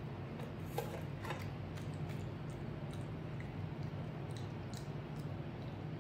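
Faint scattered clicks and light taps of a monkey picking a fried dough fritter up off a china saucer and handling it, over a steady low hum.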